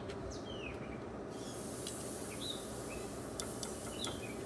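Steak laid on a hot gas grill's grate, sizzling with a fine steady hiss that starts a little over a second in. Birds chirp over it, and a couple of light clicks come near the end.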